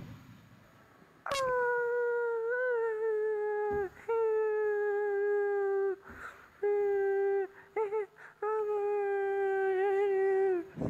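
A howling sound held in long, slightly wavering notes of two to three seconds, each dipping in pitch as it ends, repeated with short breaks and a brief warbling note near the middle.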